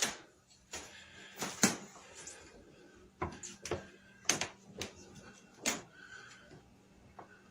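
A series of sharp knocks and clicks at uneven intervals, about nine in all, the loudest near the start and around a second and a half in, over a steady low hum.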